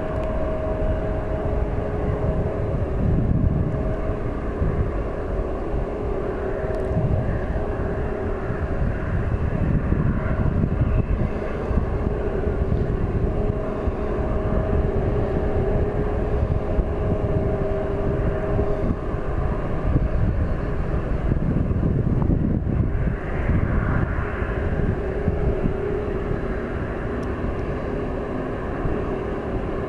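Twin-engine widebody jet airliner at takeoff power, rolling down the runway and lifting off: a steady jet rumble with a constant whine running through it.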